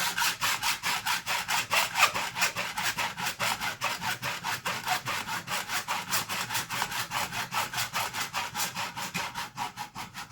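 Hacksaw cutting through the plastic shell of a handle in rapid, even back-and-forth strokes.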